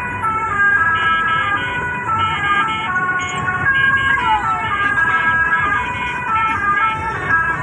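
Telolet horn playing a tune: a continuous run of bright, stepped horn notes that change pitch several times a second, with a falling glide about four seconds in.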